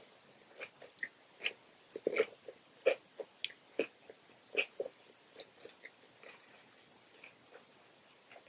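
Close-miked chewing of a cucumber roll: irregular short, crisp chewing clicks, coming thickly at first and thinning out over the last few seconds.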